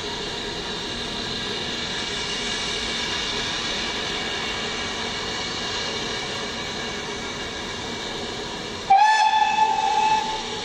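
Steam locomotive standing with a steady hiss of steam, then one whistle blast about nine seconds in, held for just over a second, the signal that it is about to move off.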